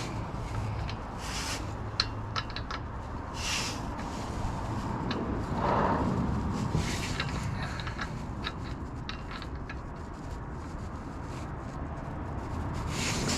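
Scattered light metal clicks, taps and short scrapes of a thread die against the damaged threads on a car's front axle end, as it is worked by hand and fails to catch. A steady low rumble sits underneath.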